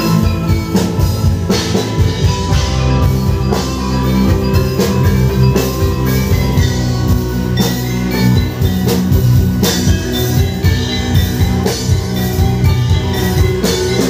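Live music with a steady drum-kit beat and bright, ringing metallic tuned percussion, played loud through a PA system.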